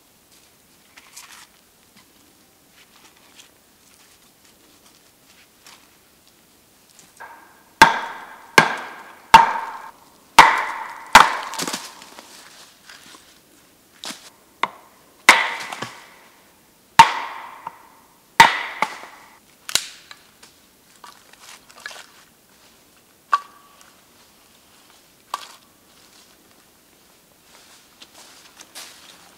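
Wood being chopped: about nine hard blows roughly a second apart, each with a short ringing tone, then a few lighter knocks near the end.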